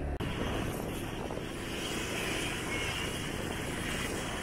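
Riding on a motorbike: the engine running and wind and road noise rushing over the microphone, heard as an even, steady rumble.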